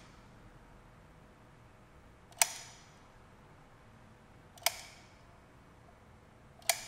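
Manual dual-cartridge adhesive dispensing gun clicking as its trigger is squeezed to push out two-part solid surface adhesive: three sharp clicks about two seconds apart, each with a short metallic ring.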